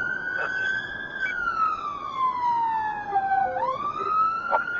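Police car siren on a slow wail, heard from inside the car. It climbs at the start, peaks about a second in, slides down for over two seconds, then sweeps up again near the end, over steady road noise.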